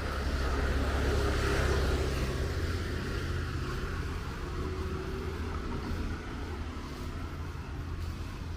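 Road traffic: a motor vehicle passing on the wet street, its tyre hiss and engine loudest about a second in and then fading, over a steady low rumble.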